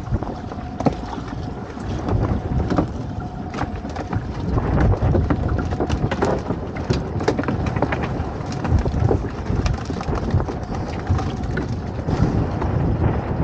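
Wind buffeting the microphone on a small open fishing boat, a constant rumble, with water slapping and many irregular knocks and clicks.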